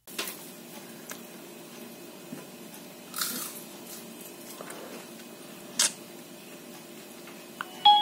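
Steady low hum with a couple of brief rustles, then near the end a Nokia 3230 starts playing its power-on startup tune, clear electronic notes.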